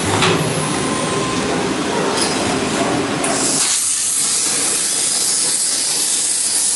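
CNC plasma cutter at work, a loud steady hiss of the plasma arc and its air. About halfway through, the lower rumble drops away and a bright high hiss takes over.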